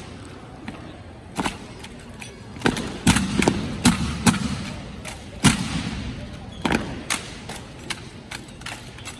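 Drill rifles being handled by a drill team: a dozen or so sharp knocks and slaps of hands on the rifles and rifle butts striking the floor, at uneven spacing, the loudest a little past the middle. Each one echoes in the large arena.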